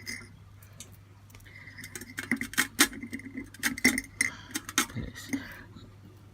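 Irregular light clicks and taps of small parts being handled at a soldering bench, several a second, from about a second and a half in until near the end, over a steady low hum.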